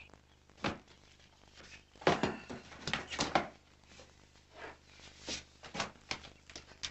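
Unpacking sounds: things lifted out of a cardboard box and set on a wooden bookshelf, a string of knocks and rustles that is busiest and loudest from about two to three and a half seconds in.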